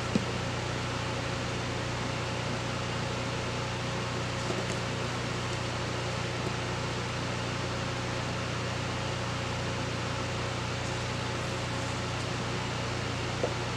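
Electric fan running steadily: a constant low hum under an even rush of air, with a few faint light taps.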